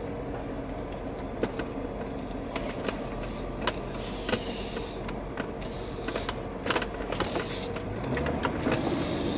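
Jeep Cherokee driving slowly, with a steady low engine and road hum. Scattered light clicks and a few brief hissing swells run through it.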